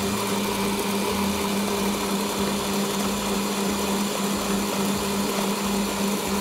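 Electric stand mixer (dough kneader) running steadily with a constant motor hum, beating mashed potato and starch into potato-chop dough.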